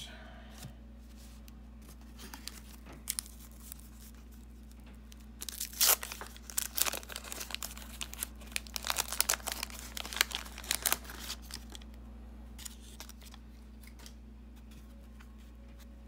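Paper wrapper of a 1991 Fleer basketball trading-card pack being torn open and crinkled by hand. It comes in a quick run of sharp tearing and crackling about five seconds in and lasts around six seconds, followed by soft handling of the cards.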